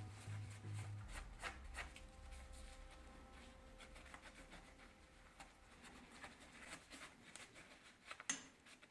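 Faint rubbing and scattered light clicks of small metal rifle parts being handled, with one sharper click near the end.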